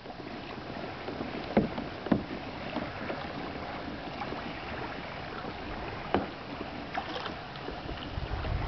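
Floodwater of the Econlockhatchee River rushing in a steady wash, with a few sharp splashes or knocks.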